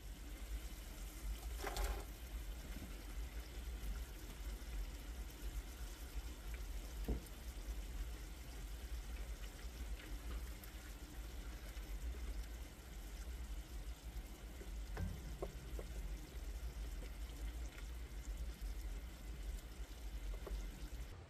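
Red wine and cranberry sauce simmering and bubbling in a steel frying pan over hot embers, with a few soft knocks in the pan.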